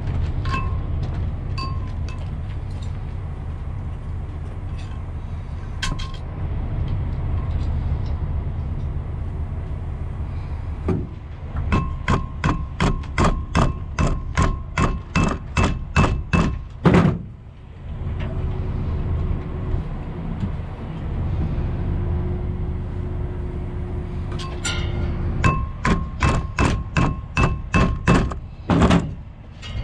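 Repeated metal-on-metal blows, about three a second, in two runs of several seconds each, each strike ringing briefly, over a steady low rumble.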